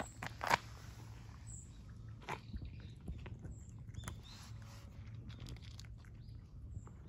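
Two cats eating from bowls: irregular small clicks and crunches of chewing, the loudest about half a second in.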